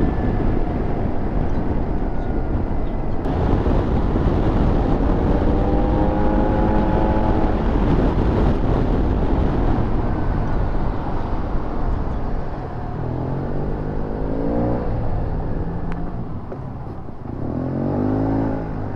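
Motor scooter ridden at speed, with a steady rush of wind on the microphone over the engine note. The engine pitch rises and falls several times, and the sound drops somewhat in the last few seconds.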